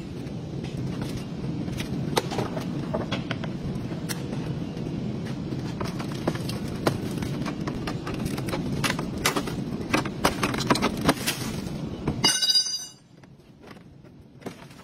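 Crushed plastic and sheet-metal body panels of a crash-damaged Haval H6 being pulled and handled: repeated cracking, clicking and knocking over a steady low rumble. A brief high-pitched squeal comes about twelve seconds in, then the sound drops off sharply.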